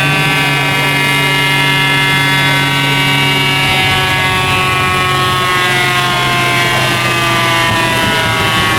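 Turbocharged VR6 of a Golf 2 VR6 Turbo 4Motion running loudly at a steady high pitch, with the pitch beginning to fall slowly about three and a half seconds in.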